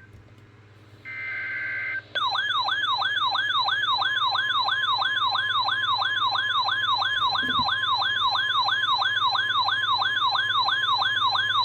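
Emergency alert broadcast tones. A short burst of two steady tones comes about a second in, typical of the coded data header that opens an alert. It is followed by a loud warbling, siren-like attention tone that sweeps up and down about three times a second.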